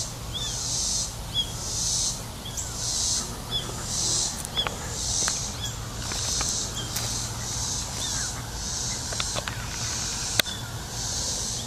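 Insects calling in high, evenly repeated pulses, about one and a half a second, with short high chirps between them. A few sharp clicks, the loudest about ten seconds in.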